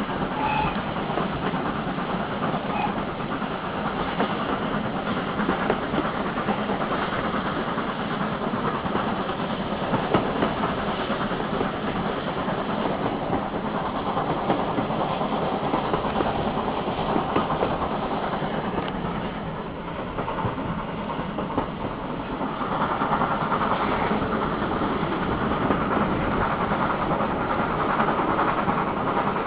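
GWR Manor-class steam locomotive No. 7828 "Norton Manor" working, a continuous rush of steam and exhaust. The sound eases a little about two-thirds of the way through, then builds again and stays louder.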